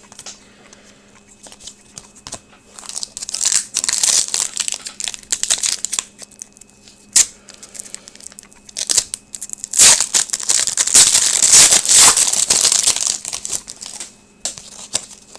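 Crinkling of a foil trading-card pack wrapper being torn open and handled, in two spells of crackling with a few sharp clicks between them.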